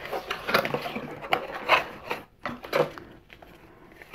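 Cardboard box flaps being pulled open, cardboard scraping and rubbing on cardboard, then the rustle of a paper card being slid out of the box. A string of short scrapes in the first three seconds, quieter near the end.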